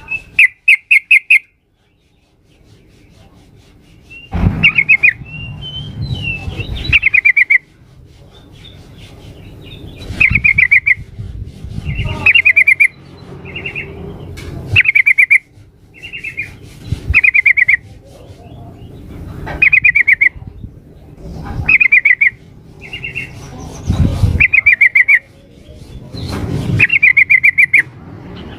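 Yellow-vented bulbul (trucukan) giving short, loud, bubbly chattering phrases, repeated about every two seconds after a brief silence near the start. It is presented as a female calling a male, as a lure to make male bulbuls answer. A low rumble sits underneath.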